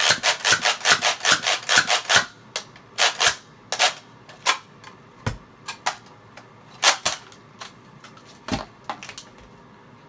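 Nerf Mediator dart blaster slam-firing: fast mechanical clacks as it is primed and fired over and over, about five a second for the first two seconds, then slower, irregular single shots.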